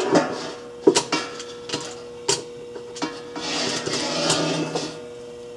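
Heat gun running on high with a steady whine, swelling in airy noise for over a second near the middle, while several sharp knocks and clatters come from the battery pack and tools being handled on the bench.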